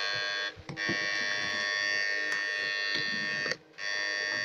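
Susan 1030SMP electric fish stunner buzzing steadily as it sends current into the water, switched on in bursts: the buzz cuts out briefly about half a second in and again near the end.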